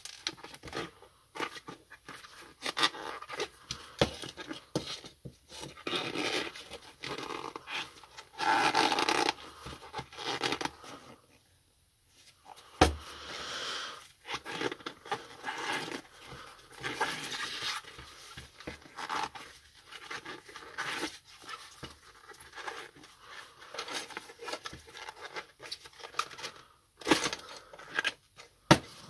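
A stroller's rubber tyre and inner tube being worked off the wheel rim with plastic tyre levers: irregular scraping, rubbing and clicking, with one sharp knock about thirteen seconds in.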